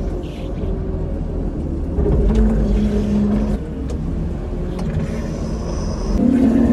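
Merlo telehandler's engine running, heard from inside the cab, rising in pitch and loudness under hydraulic load as the boom lifts a bucket of straw, about two seconds in and again near the end.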